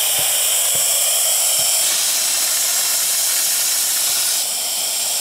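Steam hissing hard from an opened try cock on a fire-tube steam boiler at about 75 psi, the way the water level is checked. The hiss changes texture about two seconds in and eases slightly near the end.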